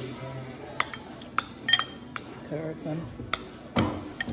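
Cutlery clinking and tapping against dishes: a string of sharp, separate clicks about once a second, one with a short ringing, and a heavier knock near the end.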